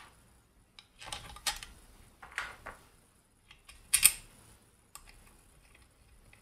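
A few short clicks and knocks of parts being handled and fitted as the top cover of a Singer 401a sewing machine is put on and its screw set in, the loudest knock about four seconds in.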